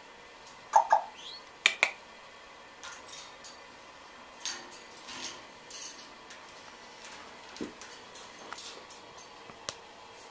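Parrots' beaks and claws clicking and clinking on the metal bars of a wire birdcage as an African grey parrot climbs, in irregular taps with the loudest clanks about a second in.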